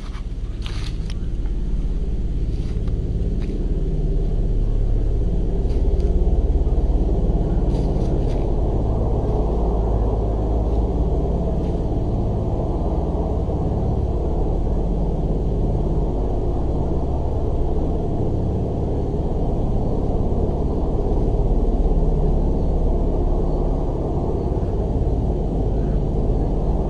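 A loud, steady low rumbling drone of unknown origin, the kind passed off as a strange sound from the sky or trees, with a few faint clicks in the first eight seconds.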